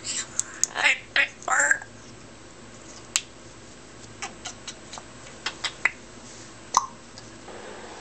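African grey parrot calling: a quick run of short squawks and chirps in the first two seconds, then a scattering of sharp clicks and brief chirps with pauses between.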